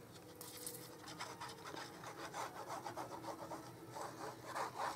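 Faint, quick rubbing strokes of hand on paper, as a glued layer of patterned paper is smoothed down onto cardstock. The strokes grow a little stronger near the end.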